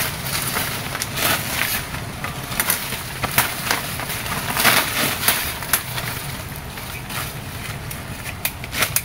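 A hand digging tool jabbing and scraping into packed soil, loosening dirt in a burrow, with uneven crunching strikes.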